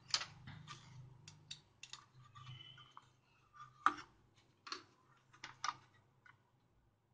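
A printed circuit board handled and set down on a workbench: a scatter of light clicks and knocks, the loudest about four seconds in, with a brief faint squeak near the middle.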